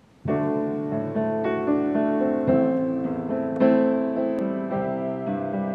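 Grand piano being played: it starts suddenly just after a brief silence, and the notes change about every half second over held lower notes.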